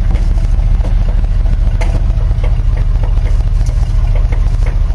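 1977 Chevrolet K10 pickup's engine running at low revs in drive as the truck creeps along, heard from inside the cab as a steady low rumble.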